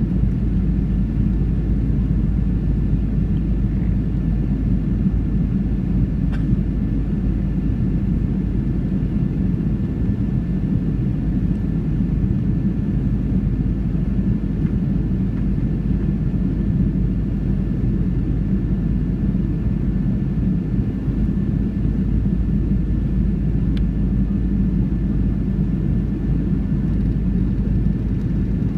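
Steady cabin noise inside a Boeing 737-700 on approach, heard from behind the wing: the low rumble of its CFM56-7B jet engines and the airflow over the extended flaps, with a faint steady whine above it.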